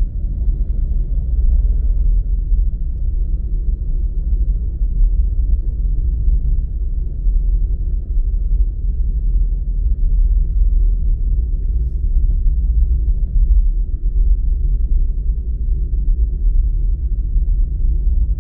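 Steady low rumble of a car driving, road and engine noise with almost nothing high-pitched in it.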